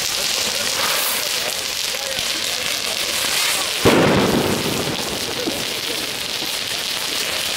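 Fireworks going off, a steady crackling hiss. One loud bang about four seconds in, trailing off in a rumble.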